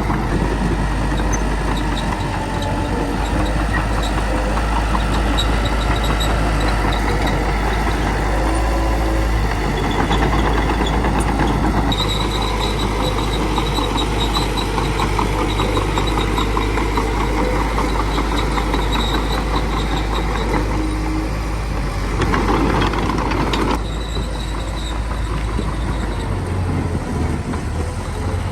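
Small bulldozer at work, its diesel engine running steadily under load, with brief squeals now and then.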